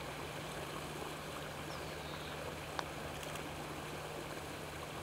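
Quiet open-air ambience with a steady low hum and a few faint high chirps. A single short click a little past halfway: a putter striking a golf ball.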